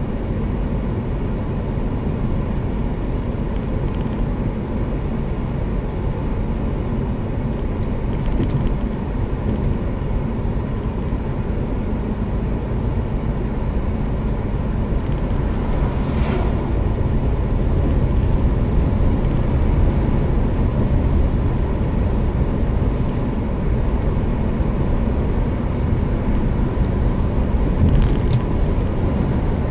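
Car driving at road speed, heard inside the cabin: a steady low rumble of engine and tyres on the road. There is a brief higher rush about halfway through.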